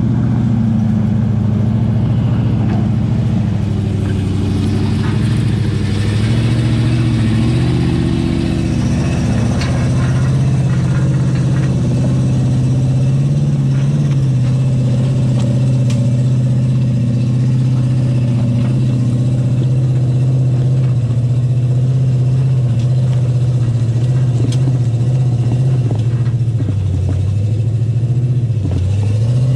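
Off-road rock-crawling truck's engine running at low, steady revs as it creeps up a rocky hill climb, its pitch dipping and climbing back near the end.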